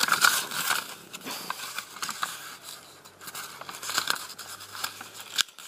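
Sheets of paper being handled, rustling and crinkling, with a few sharp clicks, loudest at the start and again about four seconds in.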